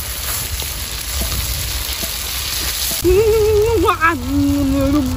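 Food frying in a metal wok over a wood fire, a steady high sizzle. From about three seconds in, a person's wordless voice comes over it: a held, wavering vocal sound with no words.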